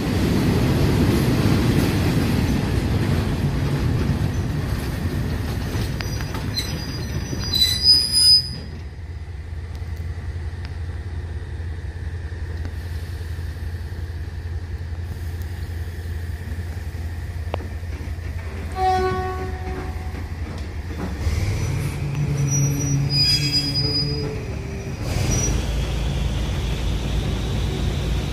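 Passenger train on the Death Railway running with a steady low rumble. A brief high-pitched squeal comes about 8 seconds in, and the horn sounds at about 19 seconds and again from about 22 to 24 seconds.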